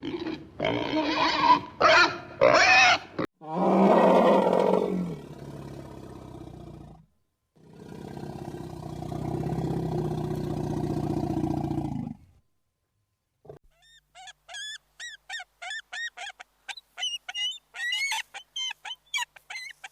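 A run of different animal calls, one after another. First come short pitched calls. Next is a long, loud call that fades out, then a steady low drone for a few seconds. After a short gap comes a quick series of short chirps.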